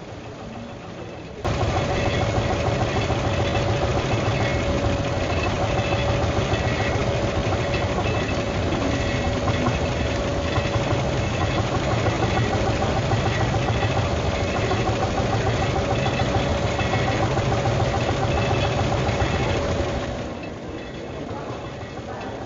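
A steady machine drone, an engine-like hum with a constant mid-pitched tone over a low rumble. It cuts in suddenly about a second and a half in and drops away shortly before the end.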